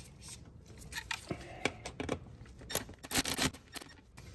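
Hand tool working the throttle cable's nut on its mounting bracket: small metallic clicks and scraping, with a dense run of clicks about three seconds in.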